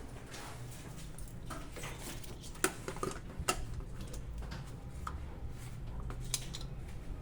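Brastemp BWJ14 washing machine's control panel being set: scattered clicks and light knocks, a few sharper ones in the middle, over a steady low hum.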